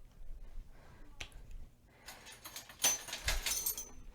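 Light clicks and rattles of small kitchen containers being handled: a single click about a second in, then a quick cluster of clicks over the second half.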